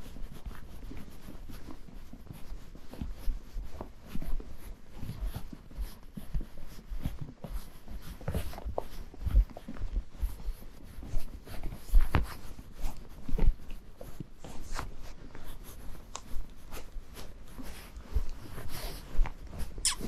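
Horse being ridden: irregular low thuds of hooves with creaks and clicks of the saddle and bridle.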